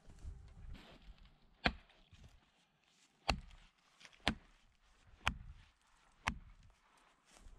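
Five hard strikes on wood, the last four about a second apart, with a striking tool such as an axe or hammer, during chainsaw tree felling.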